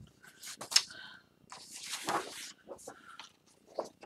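Sheets of scrapbook paper and cardstock rustling and sliding across the tabletop as they are handled, with a sharp tick about a second in and a longer swish near the middle.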